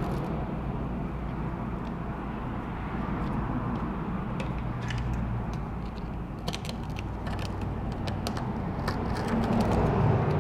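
Scattered small clicks and scrapes of a tool picking broken glass pieces and adhesive off an iPod touch's frame, over a steady low background hum.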